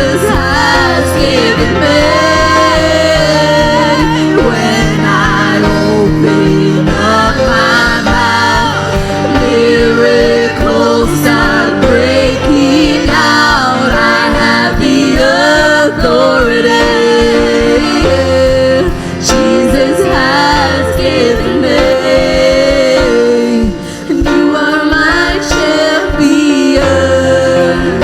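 Gospel worship music: singers' voices with bending, held vocal lines over a band with sustained chords and bass.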